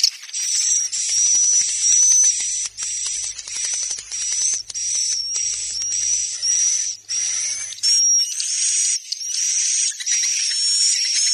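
Recorded swiftlet roosting call (suara inap): dense, high-pitched chattering trills with a short whistle-like tone recurring about every half second. It is the kind of call played in swiftlet houses to draw swiftlets in to roost.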